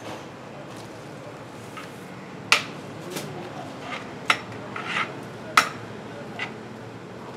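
Metal clanks and knocks from a large metal biryani pot and its metal lid-plate as biryani is dished out of the pot. There are about seven irregular knocks, starting a couple of seconds in, and three of them are sharp and loud.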